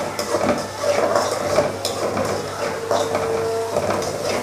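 Chopped vegetables sizzling in hot oil in a pan while a spatula stirs them, scraping and knocking irregularly against the pan.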